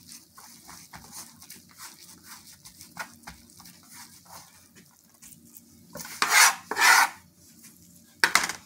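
Gloved hands kneading and squeezing a mix of chopped shrimp, chicken, beef and cream cheese into a ball on a plastic cutting board: soft wet squishing with faint ticks. Three much louder noisy bursts come about six, seven and eight seconds in.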